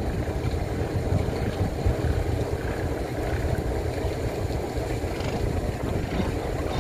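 Fishing trawler's diesel engine running with a steady low rumble as the boat approaches, with wind buffeting the microphone.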